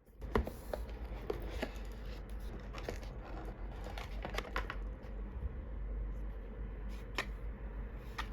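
A cardboard product box and its packaging being handled: scattered light clicks and taps with soft rustling, over a low steady hum.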